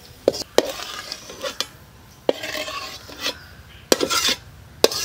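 Perforated steel ladle scraping the bottom of a wide metal frying pan and clinking against a steel plate as crisp fried ginger is scooped out, with several sharp knocks.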